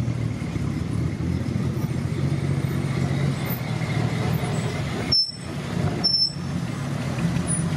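Engines of classic cars and motorcycles passing slowly in a line, a steady low engine hum. Two brief thumps about five and six seconds in.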